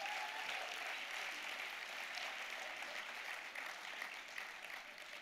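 Large audience applauding, a dense patter of many hands clapping that slowly dies away near the end.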